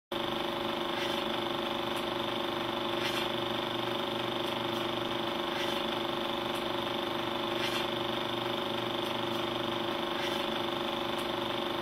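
Film projector running: a steady mechanical whir and hum, with faint clicks every second or two.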